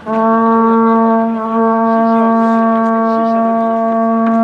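A blown horn sounding one long, steady note at a single pitch, starting abruptly.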